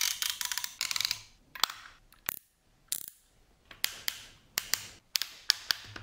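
Ratchet joints and metal-and-plastic parts of a large die-cast Voltron figure clicking as it is folded by hand into lion mode: a fast run of ratchet clicks in the first second, then scattered single clicks and knocks.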